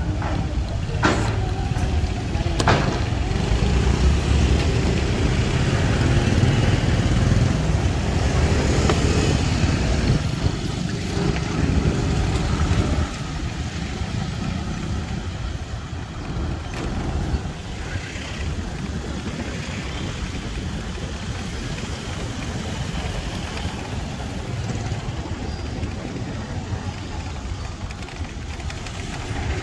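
Street traffic heard from a moving e-bike: a steady mix of passing car and motorcycle engines and road noise. It is louder for the first dozen seconds, then eases off a little.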